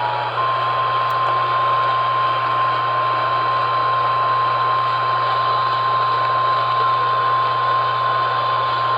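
Emergency Alert System attention signal received on AM radio: the two-tone alert cuts off within the first half-second and a single steady, slightly higher alert tone takes over. Constant radio hiss and a low hum lie under the tones.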